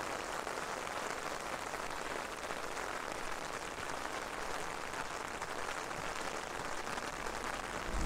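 Rain pouring down steadily, an even hiss of drops, heard from under an umbrella.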